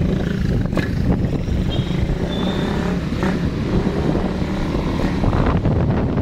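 Steady low rumble of a moving vehicle, with wind buffeting the microphone and a few knocks.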